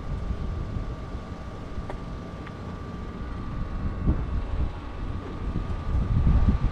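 Wind buffeting the microphone outdoors: an uneven low rumble that swells in gusts about four seconds in and again near the end, under a faint steady high hum.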